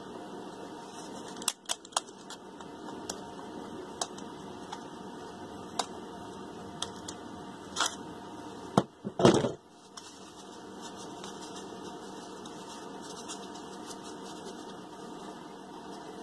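Screwdriver prying and tapping at the seal and shaft end of a hot-water heating circulator pump: scattered metal clicks and scrapes, with a louder scraping clatter about nine seconds in. A steady low hum runs underneath.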